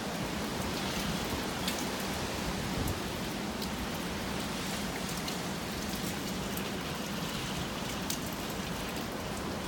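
Typhoon rain falling steadily: a dense, even hiss with scattered sharp ticks of drops striking.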